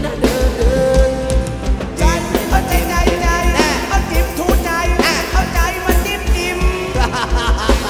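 Live Thai ramwong dance band playing: a steady bass-drum beat with drum kit and congas under a wavering sung or played lead melody.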